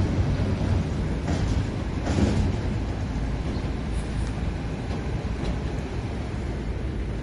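Heavy diesel trucks with trailers rolling slowly past: a steady low engine rumble mixed with tyre noise.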